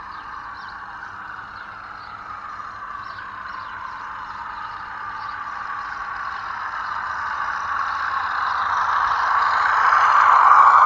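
Large-scale garden railway model train, a diesel-outline locomotive hauling coaches, running along the track: a steady whirring of motor and wheels on rail that grows louder as the train approaches and passes close by.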